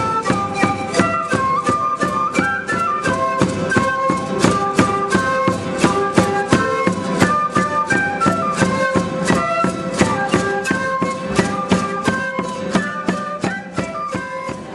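Traditional folk music: a flute-like wind instrument plays a melody over a quick, steady percussion beat.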